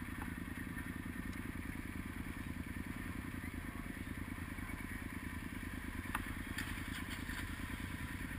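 Motorcycle engine running steadily at low revs close to the microphone, a fast even pulsing throughout. A sharp click sounds about six seconds in, with a few fainter clicks just after.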